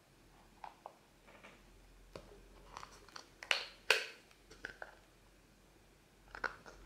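Utility knife blade cutting a cross into a hard plastic screw-on lid: a series of irregular clicks and cracks as the plastic gives, loudest about four seconds in.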